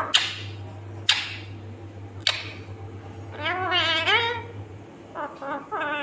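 Indian ringneck parakeet handling a plastic spoon: three sharp clicks in the first couple of seconds, then a long warbling, wavering call around the middle and a few short calls near the end.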